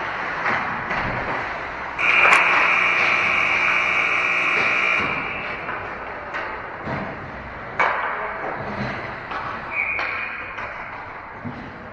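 Ice hockey game sounds in an arena: sharp clacks of sticks and puck. About two seconds in, a loud, steady tone sounds for about three seconds, either an arena horn or a referee's whistle. A short tone at a similar pitch follows near the end.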